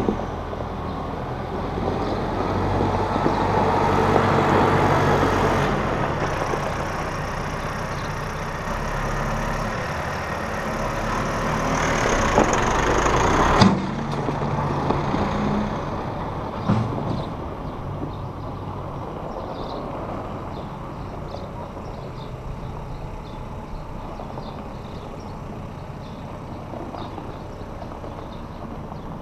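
Massey Ferguson 1759 compact tractor's diesel engine running as it drives past, growing louder as it comes close about halfway through, with a single sharp knock as it passes nearest, then fading as it pulls away.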